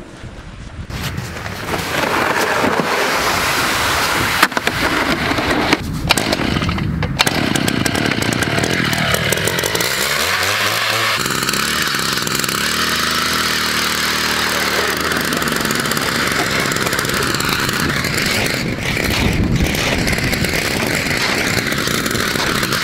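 Gas-powered ice auger running hard while drilling through pond ice about four inches thick; around ten seconds in the engine drops toward idle and revs back up, and the sound breaks off briefly a few times.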